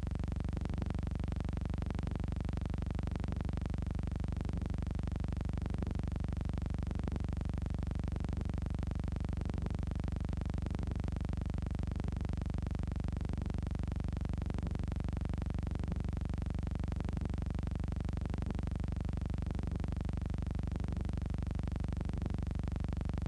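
Steady low electrical hum with a buzz of harmonics and faint crackle, unchanging throughout; no speech or music.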